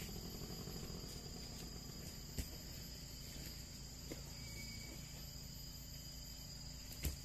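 Steady high-pitched chorus of insects such as crickets, with two brief knocks, one about two and a half seconds in and a louder one near the end.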